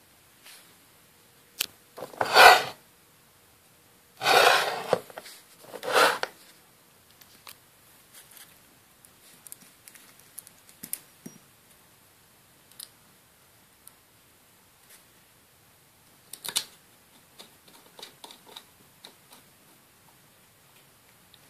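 Hands handling a roller-skate wheel ringed with disc magnets on a board: three short, loud scuffs in the first six seconds, then scattered light clicks and taps of fingers on the magnets.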